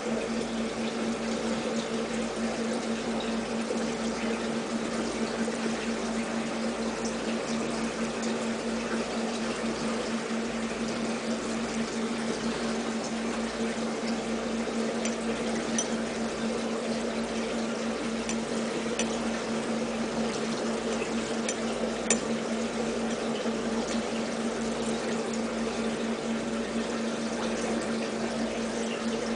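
Aquarium water pump or filter running steadily: trickling, splashing water over a constant low hum. A few faint clicks, the sharpest about 22 seconds in.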